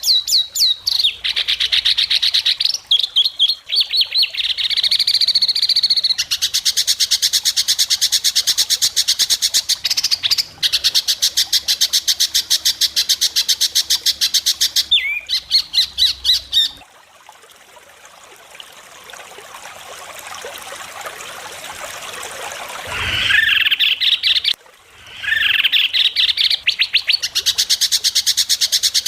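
White-rumped shama (murai batu) singing in fast rapid-fire runs of sharp, repeated high notes, the 'besetan' style of its song. The runs break off for a quieter stretch of about six seconds past the middle, then start again.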